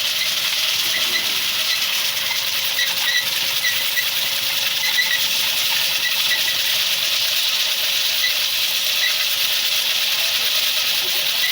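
Automatic raffia twine winding machine running, a steady hissing whir of its motor and spinning spool with scattered short squeaks.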